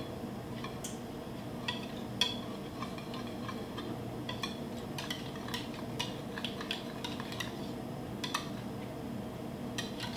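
Metal wire whisk beating an egg, cream and vanilla mixture in a measuring jug. The wires tap and clink against the side of the jug in quick, irregular clicks.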